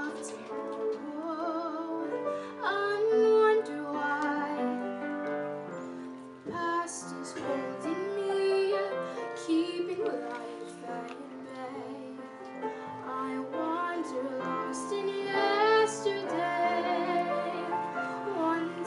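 A young woman singing a slow ballad into a microphone, her held notes wavering with vibrato, accompanied by a grand piano.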